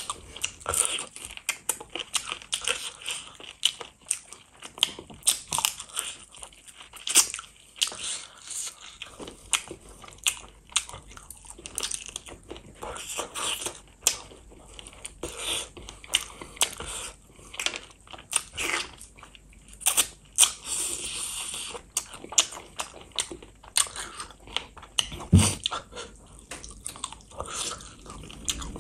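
Close-miked chewing and crunching of spicy chicken feet: a dense, irregular run of sharp crackles and bites.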